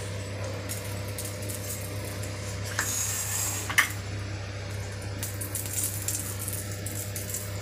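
Faint clinks and taps of steel kitchen utensils over a steady low hum, with a brief hiss and a sharp click a little under four seconds in.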